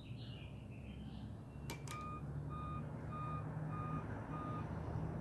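Short electronic beeps of one pitch repeating evenly about twice a second, starting about two seconds in, over a steady low rumble. Two sharp clicks come just before the beeping starts.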